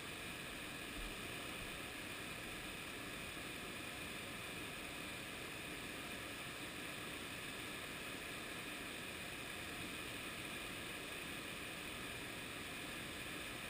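Steady rushing of white-water river rapids below a bridge, an even hiss-like roar that does not change.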